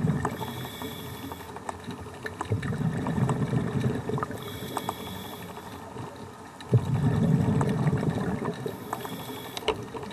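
Scuba diver breathing through a regulator underwater: a short high hiss on each inhale alternates with a longer low gurgle of exhaled bubbles, about two full breaths, with faint clicks throughout.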